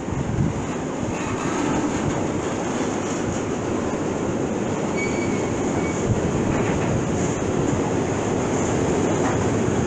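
Empty two-tier car-transporter freight wagons rolling past: a steady rumble of steel wheels on rail, with a couple of brief faint high squeals about five seconds in.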